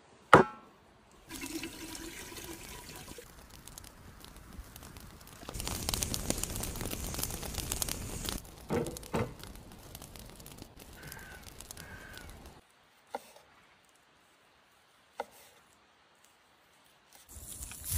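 Outdoor cooking sounds: a sharp knock on the wooden board about a third of a second in, stretches of water sounds with a few knocks, and near the end pieces of boiled beef tongue splashing into a pot of water.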